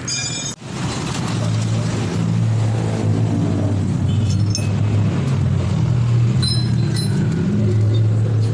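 Small engine running steadily, its pitch shifting slightly up and down. A brief high chime and a short dropout come just before it, near the start.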